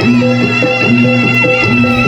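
Traditional Javanese gamelan music accompanying a barongan dance: a long held wind-instrument note runs over a quick repeating pattern of short pitched strikes.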